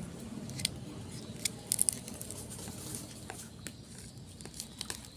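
Scattered sharp clicks and crackles, with a quick cluster of them about two seconds in, over a low hum.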